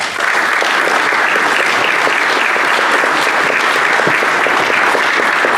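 Audience applauding: dense, steady clapping that begins suddenly.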